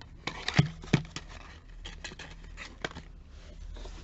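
Cardboard perfume box and bottle being handled: a run of small clicks and taps, with two louder knocks about half a second and a second in.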